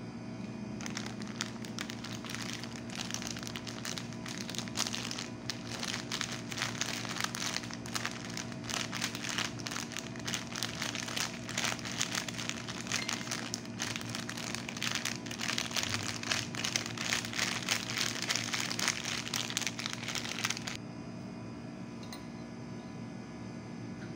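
Plastic sachet of instant soup mix crinkling as it is squeezed and shaken to empty its powder into a bowl. It is a dense run of crackles that starts about a second in and stops suddenly near the end, over a steady low hum.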